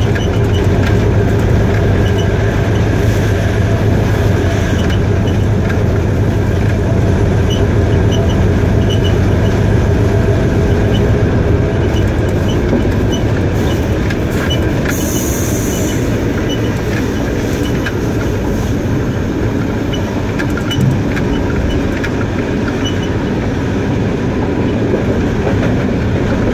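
GEU-20 diesel-electric locomotive running along the line, heard from inside the cab as a steady low engine hum over the wheels rolling on the rails. A brief high hiss comes about halfway through.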